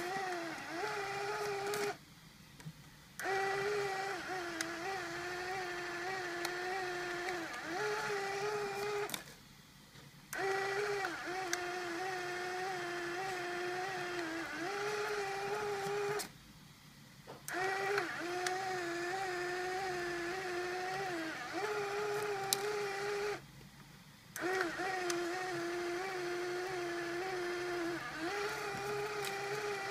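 Small electric motor in a Polaroid camera converted for Instax Wide film, driven from an Arduino, running with a steady whine that wobbles slightly in pitch. It runs in stretches of about six seconds and stops for about a second four times.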